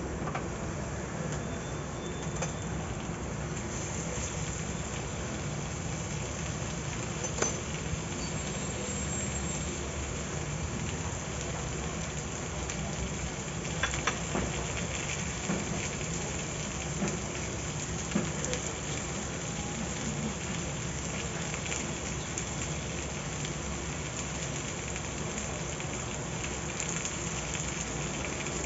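Gas stove burner running steadily under a sizzler plate as the plate heats up, a continuous hiss with a low rumble. A few sharp ticks and crackles stand out, about 7, 14 and 18 seconds in.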